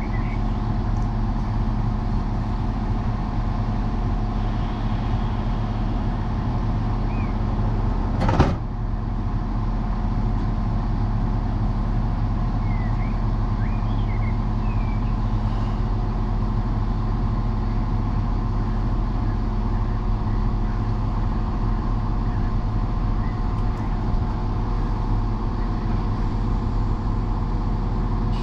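Diesel multiple unit idling at the platform, a steady engine hum. There is one sharp knock about eight seconds in, and a few faint bird chirps.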